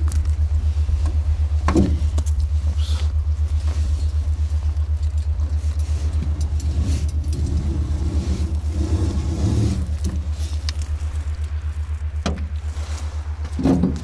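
A steady low rumble with a fast, regular throb, over which a few knocks sound as rope and a wet gill net are hauled hand over hand into an open boat.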